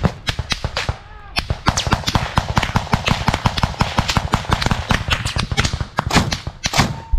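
Rapid small-arms gunfire in a trench fight, with shots coming several times a second and a short lull about a second in.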